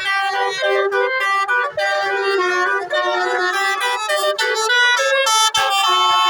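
Telolet bus horn, a multi-tone Basuri musical air horn, playing a fast melody. Several notes sound at once and change every fraction of a second, with short breaks between phrases.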